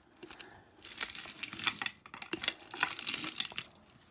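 Hands rummaging through a pile of beaded necklaces, chains and bracelets, the beads and metal links clicking and rattling against each other in two spells with a short pause between.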